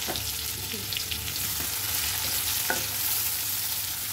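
Chopped onions sizzling in hot oil in a metal wok-shaped pan, stirred with a spatula that scrapes and taps against the pan a few times.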